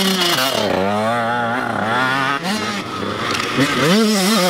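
Dirt bike engines revving, their pitch rising and falling and wavering as the throttle is worked through a tight, low-leaning corner. One bike passes, the sound dips briefly about halfway through, and then a second bike revs up.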